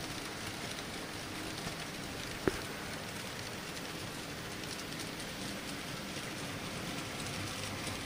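Z scale model freight train running along its track: a steady, even rattle of many small wheels rolling on the rails, with one sharp click about two and a half seconds in.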